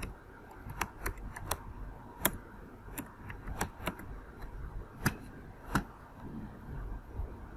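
Typing on a computer keyboard: a series of separate key clicks, unevenly spaced.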